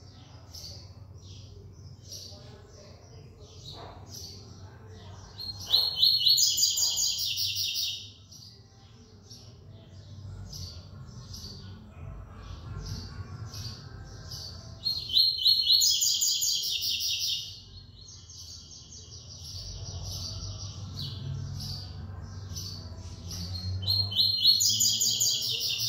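Caged double-collared seedeater (coleiro) singing its song three times, at about 6, 15 and 24 seconds in, each a loud two- to three-second run of fast-repeated high notes. Softer single notes come between the songs.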